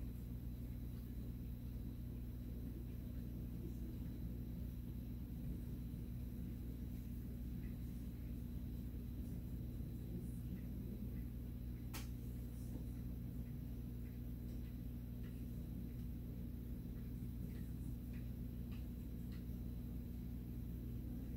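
Quiet room tone: a steady low electrical-sounding hum, with faint scattered ticks and one sharp click about halfway through.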